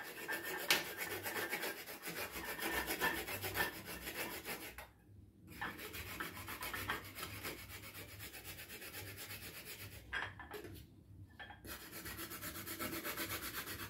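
A block of homemade chocolate being grated on a small metal hand grater: quick, steady rasping strokes, with two short pauses about five and ten seconds in.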